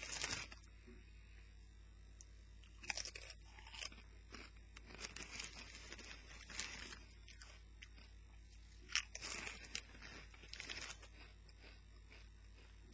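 Faint, scattered crunches and crinkles of Doritos tortilla chips and their foil bag being handled as chips are picked out.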